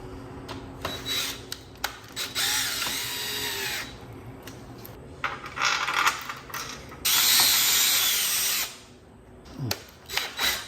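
Power drill running in three bursts, about two, five and seven seconds in, driving screws, with clicks of handling between the bursts.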